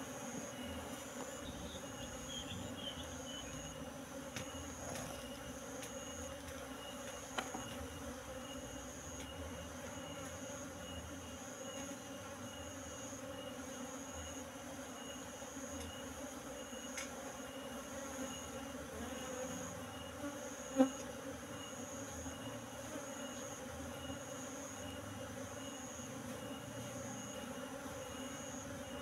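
Steady hum of a large colony of Asian honey bees (Apis cerana) flying and crawling around an open hive box as they are shaken in. A high-pitched chirp pulses steadily behind it, and a single sharp knock stands out about two-thirds of the way through.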